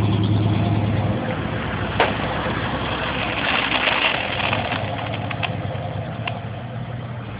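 A vehicle engine running steadily, its low hum easing off after about a second, with one sharp click about two seconds in.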